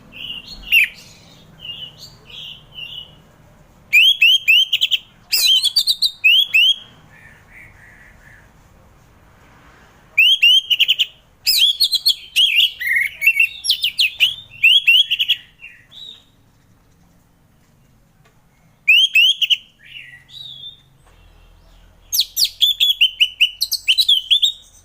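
Orange-headed thrush (anis merah) singing in the continuous 'ngeplong' style: loud phrases of rapid, sweeping whistled notes, each a second or two long, separated by short pauses.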